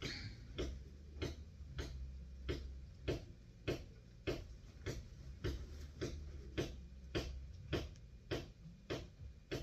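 Steady, evenly spaced ticking, a little under two ticks a second, over a low hum.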